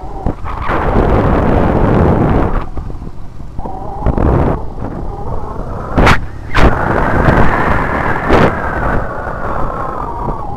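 Yamaha Byson single-cylinder motorcycle riding over a broken road, the engine revving up in the second half and easing off near the end, with wind buffeting the microphone. Three sharp knocks come about six, six and a half and eight and a half seconds in.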